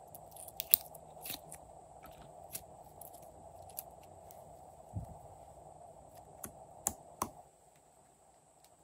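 Sharp clicks and taps of small plastic slime containers and pieces being handled, with a dull thump about five seconds in, over a faint steady background hum.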